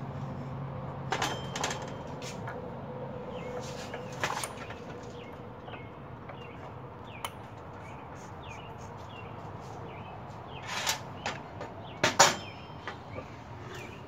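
Scattered clicks and knocks of a cogged drive belt being worked by hand onto the driver and driven pulleys of a TAV go-kart torque converter, with the pulley turned by hand. A few louder knocks come near the end.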